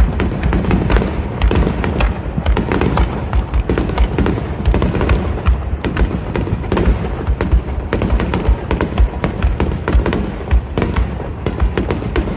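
Aerial fireworks shells bursting in a dense, rapid barrage: deep booms overlapping with sharp cracks, several a second, without a break.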